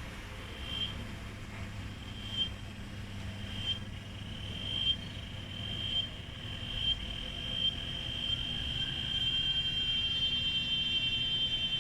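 Cicada starting its song: short high buzzy pulses, about one a second at first, come faster and faster and merge into a steady shrill buzz from about nine seconds in.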